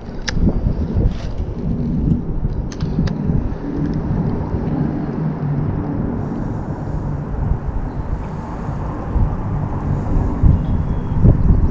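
Low rumble of wind on the microphone, with a few sharp clicks in the first few seconds.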